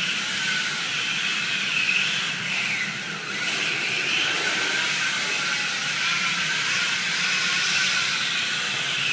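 Yokomo D-MAX four-wheel-drive RC drift car's electric motor whining, its pitch rising and falling with the throttle, over a steady hiss of its tyres sliding on a tiled floor as it drifts.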